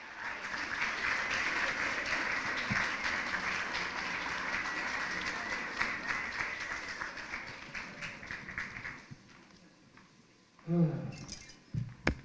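Audience applauding, the clapping dying away after about nine seconds; a brief voice near the end.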